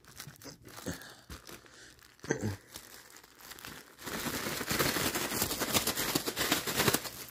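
Plastic bag crinkling as a chocolate chip cookie is crushed inside it: a few scattered knocks, then dense crinkling from about four seconds in.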